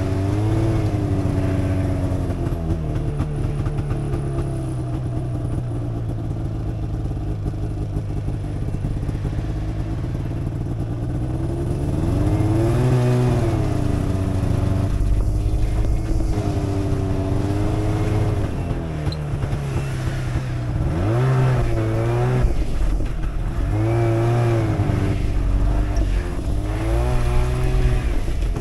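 Snowmobile engine running under way, its pitch rising and falling several times as the throttle is opened and eased off.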